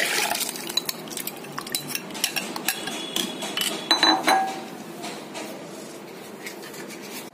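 Thick milk-and-khoya mixture pouring from a glass bowl into a steel bowl, then a steel spoon knocking and scraping against the steel bowl in a run of clicks, with a few ringing metal clinks about four seconds in.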